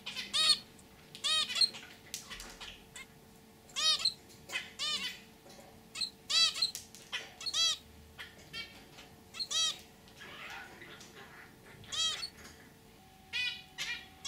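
Zebra finch calls: a dozen or so short, arched calls, often in pairs, spaced irregularly about a second or two apart.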